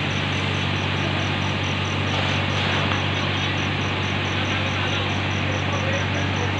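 Steady noise of a large building fire burning while it is hosed down, with a continuous low engine hum underneath. A high, thin chirp repeats evenly about three times a second.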